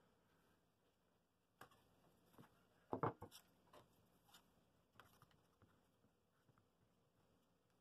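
Faint handling noises on a workbench: a few light knocks and clicks as bar clamps and a tool are moved around a glued-up wooden cradle. The loudest is a short cluster of knocks about three seconds in.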